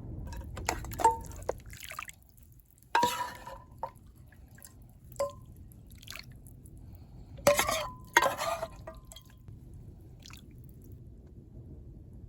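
A few sharp clinks and knocks of small hard objects, several ringing briefly, over a low steady rumble.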